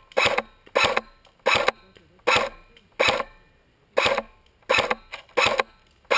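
Airsoft gun firing single shots in quick succession: about ten sharp pops at uneven gaps of half a second to a second, each followed by a short ring.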